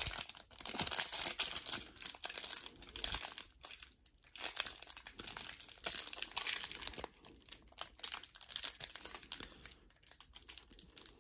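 Foil-lined wrapper of a 1991 Pro Set PGA Tour golf card pack crinkling and tearing as it is peeled open by hand, on and off, with short pauses about four seconds in and near the end.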